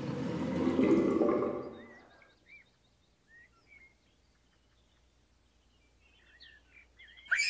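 Pouring, draining water sound, loud at first, fading away about two seconds in, as the pond vanishes. Faint birdsong follows, and a baby's giggle starts just at the end.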